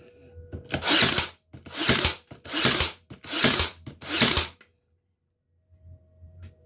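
Fujiwara 20V cordless electric nailer firing five nails in quick succession into a laminated particleboard strip in its fast mode. Each shot is a short, sharp mechanical burst, evenly spaced a little under a second apart.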